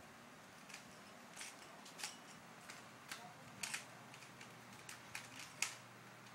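Rubik's cube layers being twisted by hand: faint, irregular plastic clicks and clacks, roughly one or two a second.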